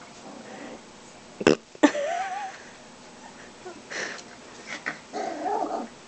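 Young greyhound puppies whining and squealing in short wavering cries, once about two seconds in and again near the end. Two sharp knocks come about a second and a half in.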